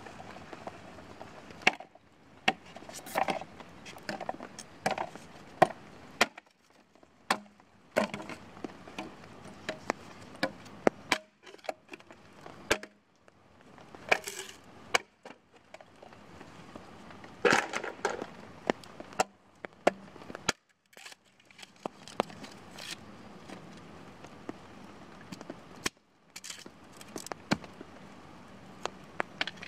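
Axe chopping and splitting a bamboo pole against a wooden stump: irregular sharp knocks at uneven intervals, with a few longer cracking sounds as the bamboo splits.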